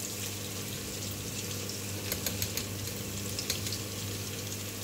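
Chopped onions frying in hot oil in a pot: a steady sizzle with scattered small crackles, the onions already turning light brown.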